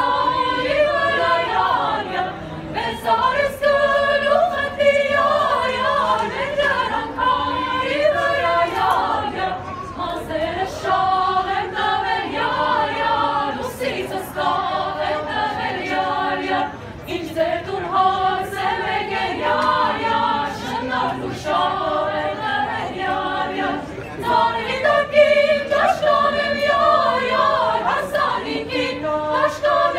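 Youth choir of mostly girls' voices singing a cappella, several voices together in harmony.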